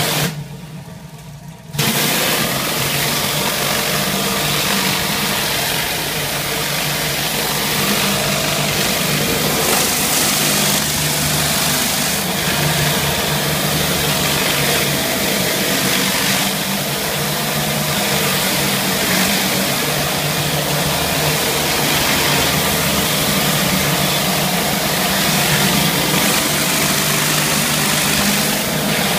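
Hot-water pressure washer running steadily: a constant engine hum under the hiss of water jetting from a Viper surface cleaner's spinning spray bar onto tile. About half a second in, the spray hiss cuts out for a second or so while the engine hum goes on.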